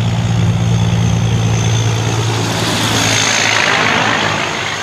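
Diesel semi truck driving past: a steady low engine drone, with tyre and road noise swelling as the trailer passes close about three seconds in, then easing.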